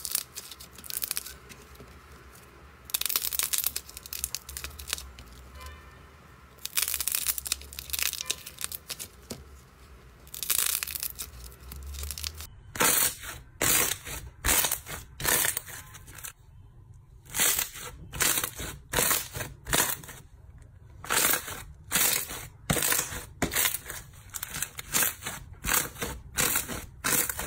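Hands working slime. First a stiff foam-like slime shaped into twists is squeezed and pulled apart, giving long stretches of crackly noise. Then, from about 13 s in, fingers pressing and poking a mound of pink slime make a series of short, sharp pops about two a second.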